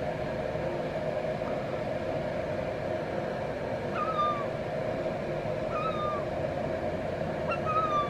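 Herring gull giving three short, mewing calls, each wavering and dropping slightly in pitch, about two seconds apart starting around the middle, over a steady low hum.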